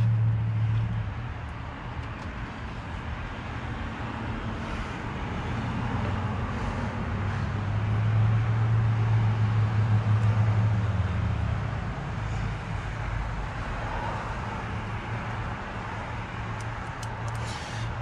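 Steady low hum over a rushing background noise, swelling about halfway through. A few light clicks near the end.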